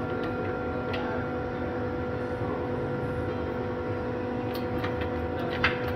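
Metalmaster HPM-30 hydraulic shop press running, its pump motor giving a steady hum with a constant tone. A few sharp clicks come near the end.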